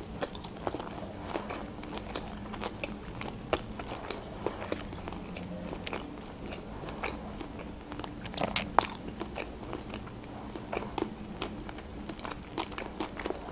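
A person chewing a mouthful of sushi rolls, with irregular wet smacks and small crunchy clicks, a brief louder burst of them about two-thirds of the way through.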